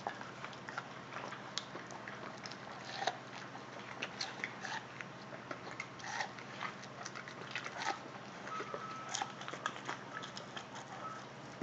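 Rottweilers chewing and crunching corn, a steady run of irregular wet crunches and bites.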